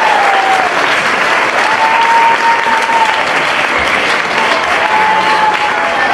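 Audience applauding steadily, with a few high voices calling out long notes over the clapping.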